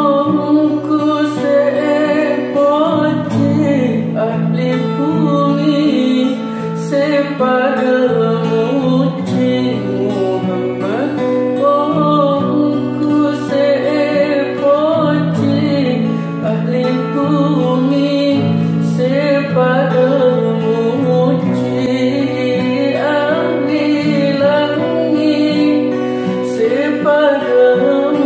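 Madurese devotional syair in praise of the Prophet Muhammad, sung in long drawn-out, gliding vocal lines over sustained instrumental accompaniment.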